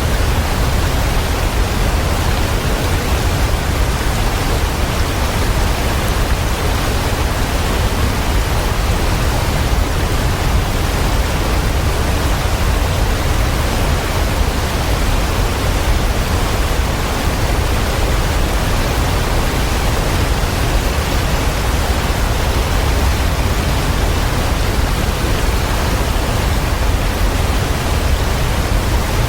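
Waterfall: a steady, unbroken rush of falling water, strongest in a deep low rumble.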